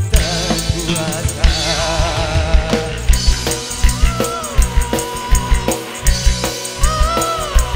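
Live band music amplified through a stage PA: a drum kit keeping a steady beat with kick and snare hits under a bass line, with a sliding, wavering lead melody over it.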